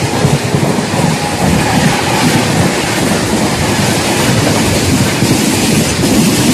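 Indian Railways passenger coaches passing at speed close by, their wheels rumbling and clattering on the track in a loud, continuous rush.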